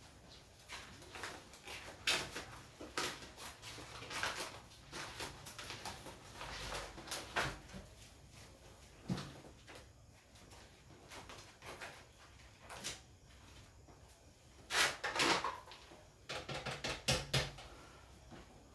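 Scattered rustles and knocks of desk work: paper handled, pages of a notebook turned and small objects moved on a desk, in irregular strokes with a few louder knocks.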